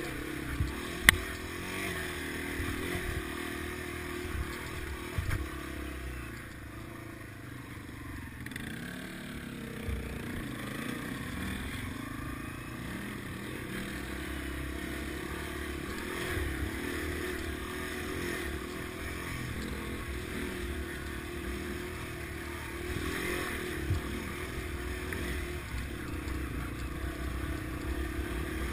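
Yamaha TW200's single-cylinder engine running steadily as the bike rides over a rough trail, with bumps and knocks from the bouncing bike-mounted camera; a sharp knock about a second in is the loudest sound.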